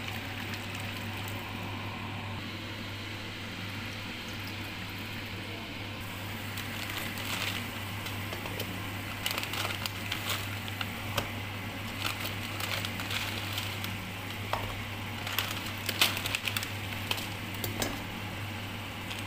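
Water poured into a pan of sauce for the first couple of seconds, then the broth bubbling on the stove with the dried canton noodle cakes in it, popping and crackling from about seven seconds in. A steady low hum runs underneath.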